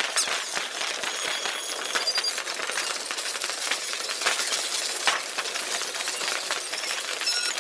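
Distant fireworks over a city played back fast-forward: a dense, thin, high-pitched crackle of many small pops and clicks, with no low end.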